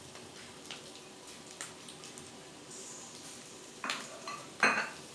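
Cubed capsicum tipped into a kadai of onions frying on low heat: a faint sizzle with a few light clicks, then two sharper knocks near the end as the pan is worked.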